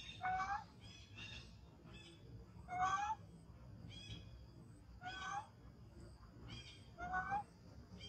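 Young macaque giving short, rising, plaintive coo calls, four loud ones about two seconds apart with fainter ones in between: the crying of a hungry infant monkey.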